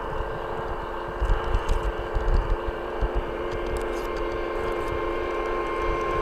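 Steady running hum and track rumble of an LGB G-scale garden railway train carrying the camera along the rails, with irregular low thumps of wind buffeting the microphone. A thin steady tone comes in about two-thirds of the way through.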